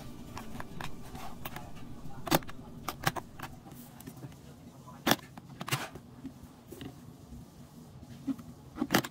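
Metal clicks and snaps from an aluminum briefcase's combination lock as it is worked: thumbwheels turned and the spring latch snapped open and shut. The sharpest snaps come about five seconds in and twice just before the end.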